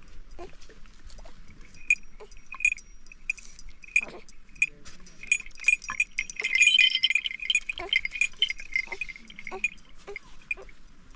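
Bells on a flock of sheep and goats clinking and ringing irregularly as the animals move, thickest and loudest around the middle.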